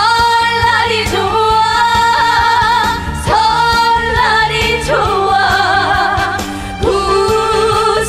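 A woman singing a Korean trot song into a microphone over a band backing with a steady beat, holding long notes with vibrato.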